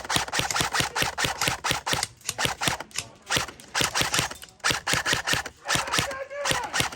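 Airsoft guns firing on full auto: rapid strings of sharp clicking shots in several bursts with short breaks between them. A voice shouts near the end.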